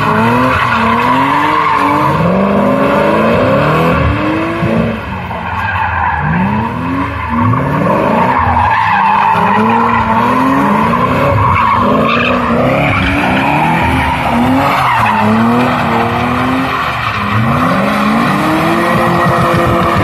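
BMW cars drifting on asphalt, tyres squealing without a break while the engines rev up and fall back again and again.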